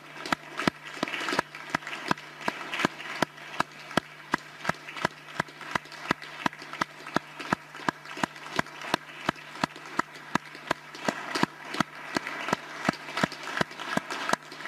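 Applause from a small group of people in a large hall. One person's claps stand out, sharp and steady at about three a second, over scattered clapping from the others.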